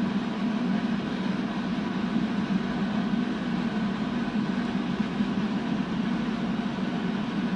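Steady hum with an even rush of air from a running cooling fan, holding one level throughout.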